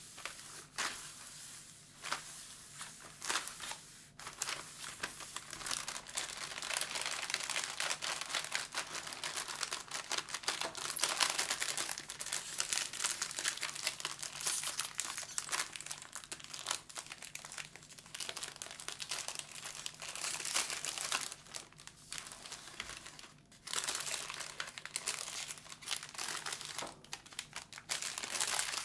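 Shiny plastic packet wrapper crinkling and crackling as it is unwrapped and peeled open by hand. A few separate crackles at first, then almost continuous crinkling with a short break near the end.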